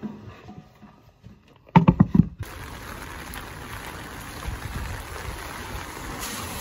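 A quick cluster of knocks, then steady rain falling with an even hiss.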